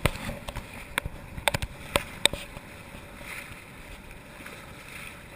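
Sharp knocks and clicks, about six in the first two and a half seconds, then a steady wash of water and wind noise on a small sailing boat underway.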